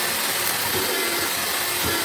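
Homemade drill-driven mortiser running steadily, its electric drill motor whining as the chisel and bit cut a mortise into wood.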